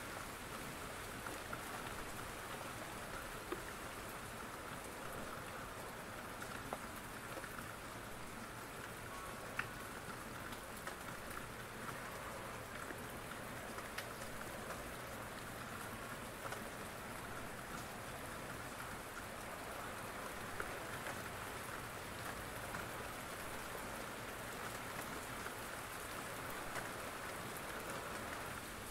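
Steady rain falling and pattering on surfaces, an even wash of sound with a few isolated sharp ticks scattered through it.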